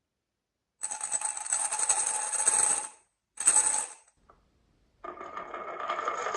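Marbles rolling and clattering down a marble run track with a bright ringing rattle, for about two seconds and then again briefly, followed by a single click. About five seconds in, a steadier continuous rolling sound starts.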